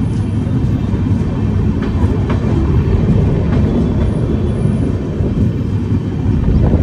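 Passenger train running along the track, heard from the open door of a coach: a steady heavy rumble of wheels on rails and rushing air, with a few sharp clicks about two seconds in and again a little later.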